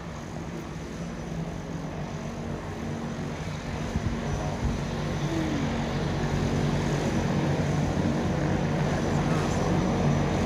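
Small twin-engine propeller plane taking off at full power, the engine and propeller noise growing steadily louder through its takeoff roll and lift-off.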